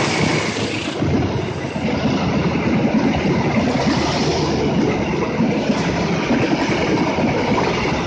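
Railway passenger coaches passing close at speed: a loud, steady rumble of wheels running on the rails.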